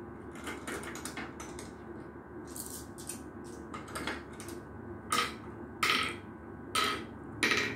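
Glass marbles clicking as they are sown into and picked out of the pits of a wooden Gurpale (mancala-type) board: a string of light clicks with a short ring, and four louder clacks under a second apart in the second half.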